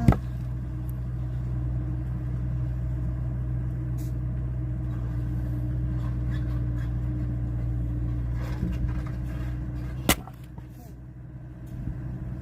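An engine hums steadily at a low pitch. There is a sharp knock at the start and another about ten seconds in, after which the sound is quieter.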